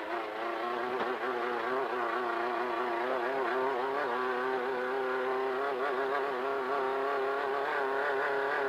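Off-road race car's engine running hard at high revs under load, heard from inside the car. The pitch wavers up and down at first, then holds steady and climbs slightly near the end.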